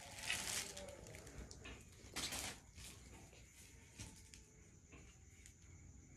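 Soft rustling and handling noises from garments being picked up and moved: a few short bursts in the first two and a half seconds, then only faint room tone.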